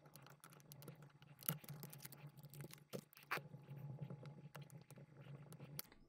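Faint clicks and scrapes of a small tool working at the terminal screws of a plastic UK double wall socket, with a few sharper clicks, over a low steady hum.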